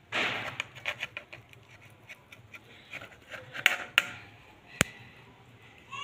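Kitchen knife cutting through an omelette on a flat iron tawa, the blade scraping and clicking against the metal, with a few sharp knocks a little past the middle.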